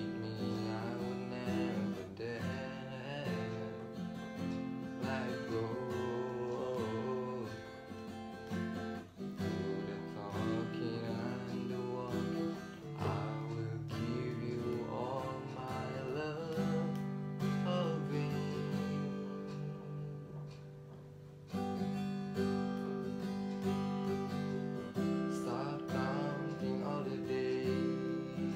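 A man singing to his own acoustic guitar accompaniment. The music eases into a quieter stretch about two-thirds of the way through, then comes back in full.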